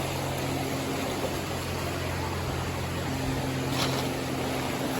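Rushing river water, a steady even wash with a low steady hum underneath. One sharp click near the end.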